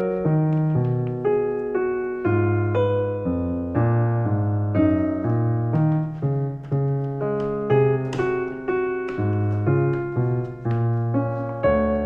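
Calm background piano music, a steady flow of gently struck chords and notes.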